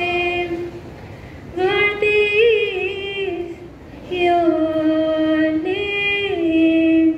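Female voice singing unaccompanied, holding long, steady notes with small steps in pitch, in phrases broken by short pauses at about one second and four seconds in.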